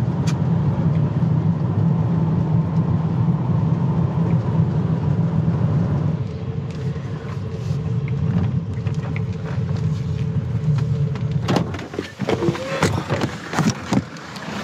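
Engine and road noise inside the cab of a Renault van on the move: a steady low drone that eases a little after about six seconds. Near the end the drone fades and a run of sharp clicks and knocks follows.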